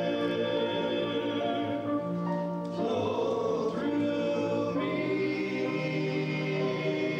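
Male gospel vocal group singing in close harmony through microphones, holding long chords that change every second or two.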